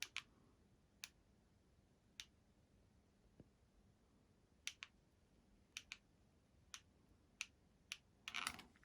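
Near silence broken by about ten sharp, separate clicks at uneven intervals, roughly a second apart, with a short cluster of rustling clicks near the end.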